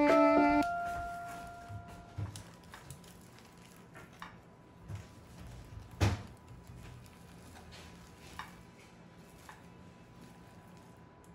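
A metal spoon scooping roasted butternut squash flesh out of its skin in a glass baking dish: soft squishy scrapes and small knocks, with one sharp clink against the dish about six seconds in. The last notes of guitar music ring out and fade over the first two seconds.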